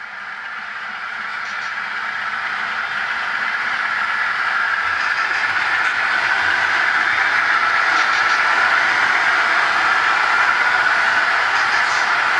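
Model intermodal train, led by two diesel locomotives, rolling past on layout track: a steady rolling and motor noise that grows louder over the first several seconds as the train comes by, then holds.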